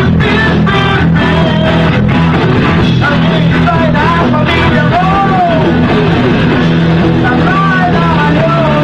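Live rock band playing loud and steadily: guitar, bass and drums, with a melody line that slides up and down in pitch.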